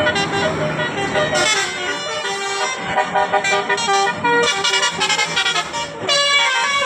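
Bus 'basuri' musical air horn playing a quick tune, its notes stepping up and down one after another.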